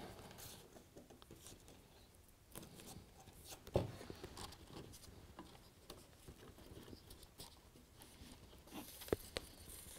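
Faint rubbing and small taps of fingers handling a model railway double slip point and its thin wires on a baseboard, with a sharp click about four seconds in and two more a little after nine seconds.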